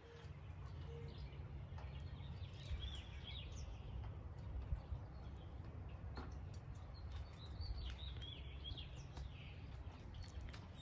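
A songbird singing two short, warbled phrases, about two seconds in and again about seven seconds in, over a faint low steady rumble.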